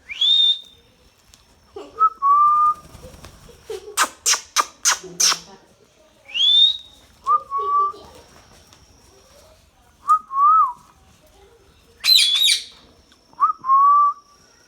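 Indian ringneck parrot calling in short bouts: whistles that sweep up and hold a high note, short lower whistled notes, a quick run of five sharp screeches about four seconds in, and a harsh squawk near the end.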